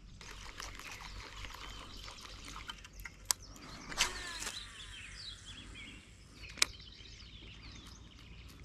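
Background birdsong of many short chirps and twitters, with three sharp clicks, the first about three seconds in, the next about a second later, and the last around six and a half seconds in.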